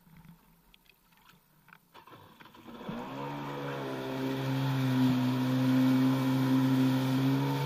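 A Yamaha SuperJet stand-up jet ski's two-stroke engine is nearly silent at first, then about three seconds in it revs up and settles into a steady high running note as the craft gets underway, with the hiss of spray off the hull.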